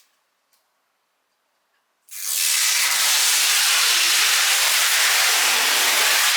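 Near silence, then a loud, steady hiss that starts about two seconds in and cuts off sharply near the end.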